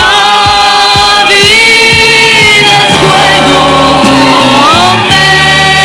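A song played by a full band with singing, coming in sharply louder at the start and staying loud throughout.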